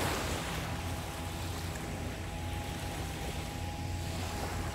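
Small sea waves washing onto a sandy beach, a brighter wash just as it begins, over a steady low hum.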